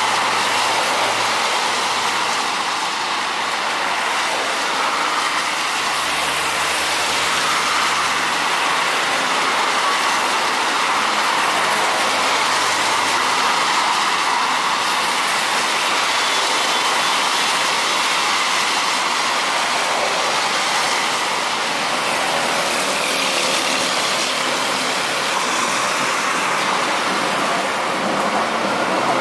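Electric light rail trains running past beside a street, mixed with the hiss of rain and car tyres on the wet road. The sound is steady, with no sudden events.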